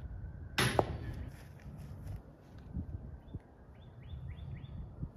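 A disc golf putt striking a chain basket: a sharp metallic clash as the disc hits the hanging chains, then about a second of jingling.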